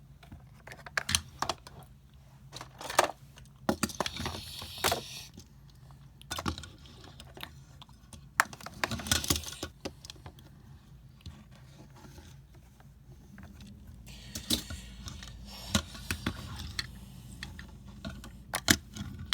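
Scattered clicks, taps and brief light rattles, with a faint steady low hum underneath.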